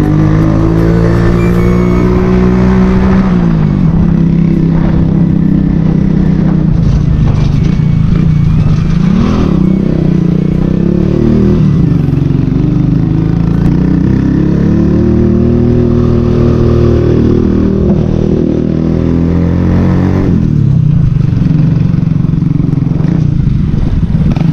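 Motorcycle engine running as the bike is ridden, its pitch rising and falling with the throttle, dropping about three seconds in and again about twenty seconds in.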